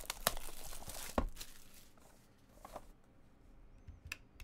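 Plastic shrink wrap crinkling and tearing as it is peeled off a trading-card box, with a few sharp crackles in the first second and a half, then quieter handling.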